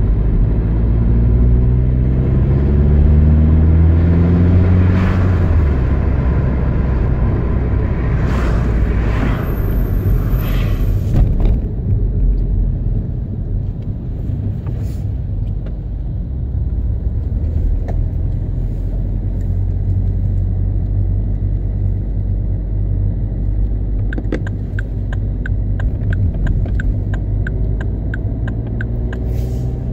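Opel ecoFLEX car engine running at low revs, heard from inside the cabin as a steady low rumble. The revs hover around 1,000 to 1,300 rpm, and the engine note rises in pitch over the first few seconds. Near the end a fast, regular ticking is heard.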